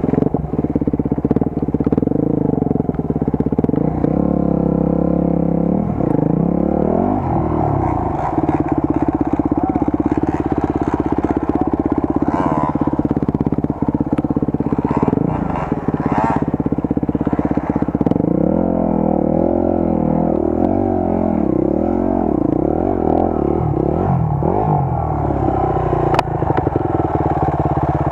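Enduro motorcycle engine running, its note steady at first and then rising and falling again and again as the throttle is worked.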